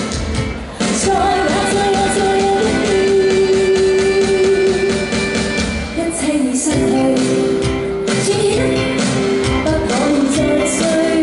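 A woman singing a Cantopop song live into a microphone over amplified pop backing music with a steady drum beat, holding long notes.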